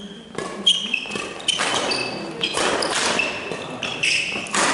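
Badminton singles rally: rackets striking the shuttlecock several times, with players' footfalls and short shoe squeaks on the sports-hall floor between the strikes.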